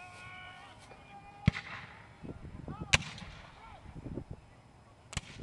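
Black-powder muzzle-loading rifle-muskets firing blanks from a reenactors' battle line: three sharp reports, one about a second in, the second a second and a half later, the third near the end, each with a short echo.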